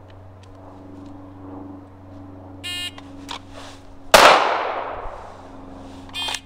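A shot timer beeps once; about a second and a half later comes a single loud 9mm shot from a Glock 19 drawn from the holster, ringing out as it fades. Another short beep sounds near the end.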